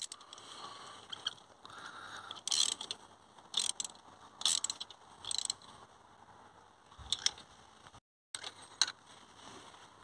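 Hand ratchet on a spark-plug socket clicking in several short bursts as new spark plugs are given their final snug tightening after being run in by hand.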